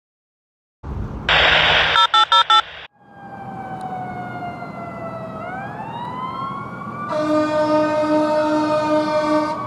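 Fire engine air horn: one long blast then three short blasts over an engine rumble, followed by an emergency siren wailing, its pitch falling slowly and then rising again. About seven seconds in a second, louder siren sound joins, with a low tone pulsing about twice a second.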